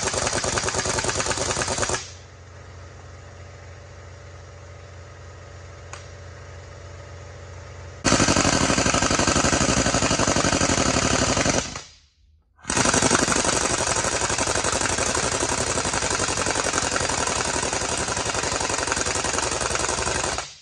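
Air impact wrench hammering on the bolts of a truck leaf spring's bolted bracket, in long runs. It stops after about two seconds for a quieter stretch of several seconds, then hammers again with a brief break near the middle.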